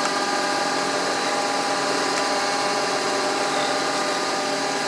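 Bridgeport milling machine running steadily, its spindle motor giving an even hum with several steady tones.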